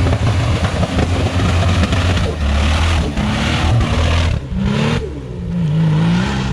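Nissan GQ Patrol's turbocharged TB42 straight-six engine revving up and down as the truck ploughs through a mud bog. It runs rough and misfires from too much water in the cylinders. Bursts of mud and water spray come off the spinning tyres.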